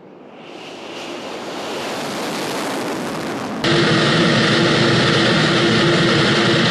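Jet engine noise of a Tu-22M3 bomber's twin NK-25 turbofans, growing louder over the first couple of seconds as the aircraft moves on the runway at night. Near the middle it cuts abruptly to a louder, steady aircraft engine drone with a steady hum, heard from inside an aircraft in flight.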